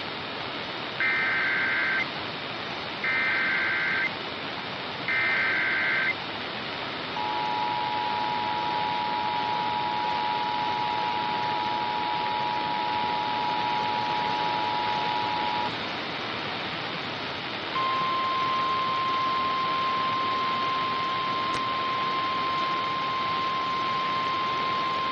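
Emergency Alert System activation for a tornado warning heard over radio hiss. Three one-second bursts of SAME header data tones come first, then the two-tone EAS attention signal held for about eight seconds. After a short pause the single-tone NOAA Weather Radio warning alarm begins and holds steady.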